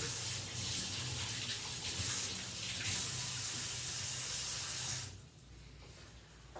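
Kitchen tap running cold water over a pair of hands being rinsed, shut off suddenly about five seconds in.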